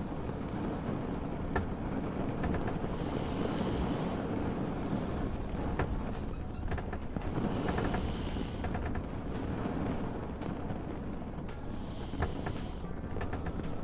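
Steady rain with a low, constant rumble of water around a boat, swelling softly about every four to five seconds, with scattered light ticks and drips.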